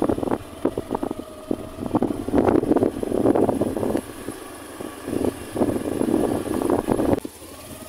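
Motorcycle riding along a rough dirt road, with irregular gusts of wind buffeting and knocking on the microphone over the engine. The noise drops sharply about seven seconds in.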